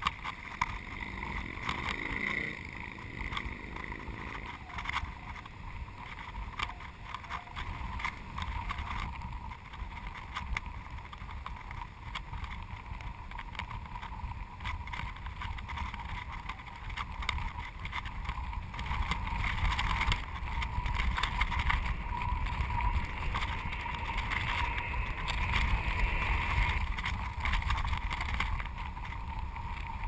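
Wind buffeting a GoPro camera hung from a kite: a steady low rumble with a scatter of small clicks, growing louder about two-thirds of the way through.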